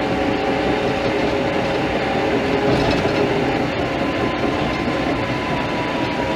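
Caterpillar crawler dozer running while working, heard from inside its cab: steady diesel engine and drivetrain noise with a constant whine, and the clatter of its steel tracks.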